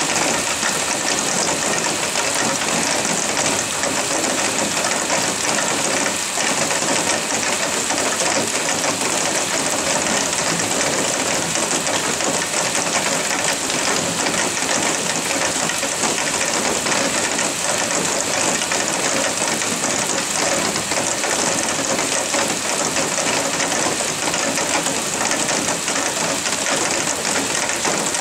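Heavy rain pouring down in a loud, steady, dense hiss.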